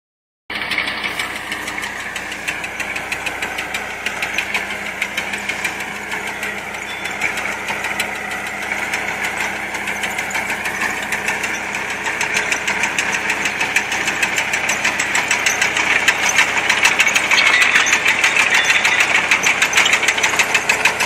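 Tractor engine running under load while a tractor-drawn potato digger lifts potatoes, its shaking grates and rotating rake rattling rapidly and steadily. The sound grows louder in the second half as the machine comes closer.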